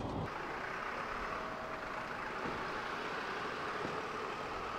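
Steady hum of distant road traffic, a low even wash of passing cars, following a brief moment of train-cabin rumble at the very start.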